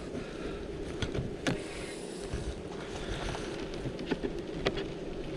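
Honeybees humming steadily around an open hive, with a few sharp clicks from handling the wooden hive parts.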